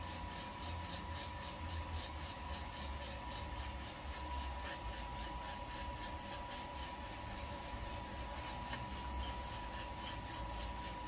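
Kaleido M10 Sniper Pro electric coffee roaster running mid-roast: the beans tumble in the turning drum with a steady rasping rattle over the fan and a thin steady whine. The beans are at the browning stage, before first crack, so no cracks are heard yet.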